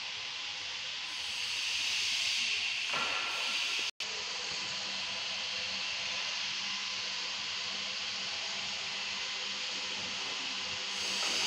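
Steady hissing background noise, a little louder for a couple of seconds near the start. It is cut off briefly about four seconds in, then carries on with a faint low hum under it.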